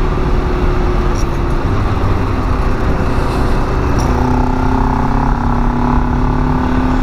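Kawasaki Ninja 500 motorcycle's parallel-twin engine running steadily while riding, with wind rushing over the microphone. The engine note changes to a lower pitch about four seconds in.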